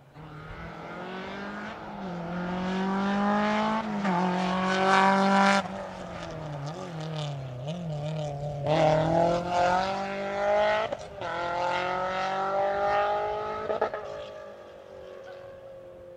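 Rally car engine at full throttle, climbing in pitch through the revs with sudden drops at each gear change or lift, about four times, then fading as the car goes away.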